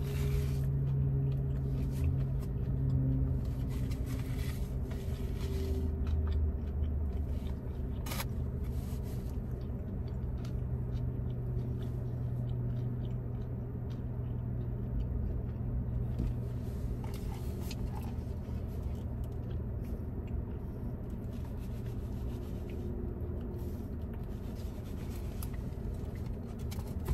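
Steady low hum of a car's engine running, with a faint sharp click about eight seconds in.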